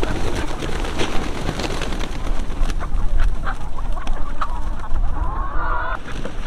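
A large flock of laying hens clucking and squawking as they crowd around feed, many birds calling over each other.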